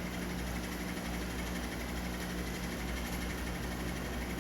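A steady low hum with a faint hiss, unchanging throughout: background machine or electrical hum in the workshop.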